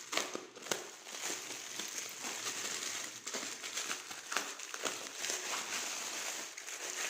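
Packaging wrap crinkling and rustling continuously, with many small crackles, as a parcel is torn open and unwrapped by hand.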